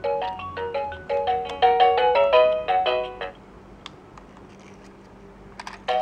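Fisher-Price Rainforest Melodies and Lights gym's music unit playing a plinky electronic tune of short notes through its small speaker. The tune stops about three seconds in, and after a pause and a couple of clicks it starts again just before the end.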